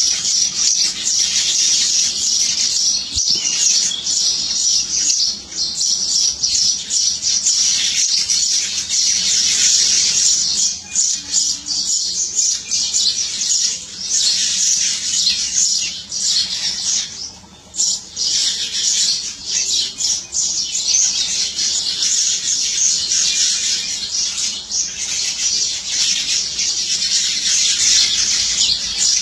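A dense chorus of many small birds chirping together without a break, with a short lull about seventeen seconds in.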